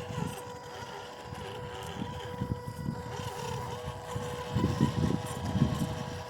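MN128 1/12-scale RC crawler's 390 brushed motor and gearbox whining at a steady pitch as the truck drives along the trail. A low rumble runs underneath and grows louder about four and a half seconds in.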